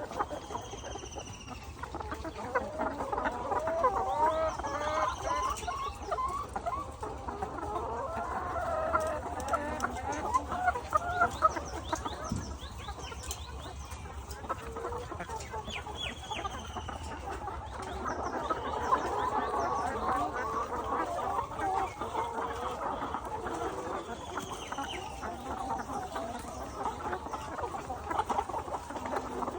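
A flock of chickens clucking continuously, many birds calling over one another.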